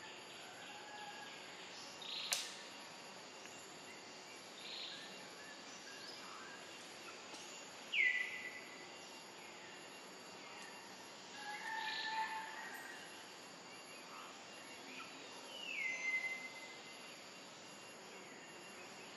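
Quiet forest ambience with birds calling: two clear whistled calls, each dropping in pitch and then holding a steady note for about a second, some eight seconds apart, with a few softer chirps between, and a sharp click a couple of seconds in.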